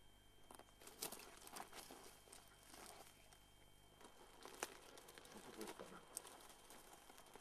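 Faint rustling and crackling of dry grass and scrub as someone moves through it, with a few sharper snaps of stems.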